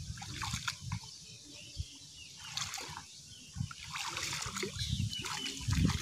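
Small, irregular splashes and trickles of water as hands stir and feel about in shallow standing water, groping along the bottom.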